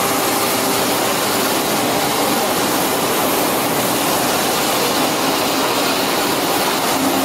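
STU SDA-400 brush-sanding machine's spinning abrasive brush drum sanding a carved wooden workpiece held against it: a loud, steady hiss.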